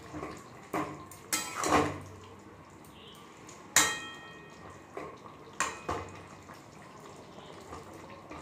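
A flat metal spatula stirring a thick curry in a steel kadai: about six sharp clanks and scrapes against the pan, some ringing briefly, with quieter wet stirring between them.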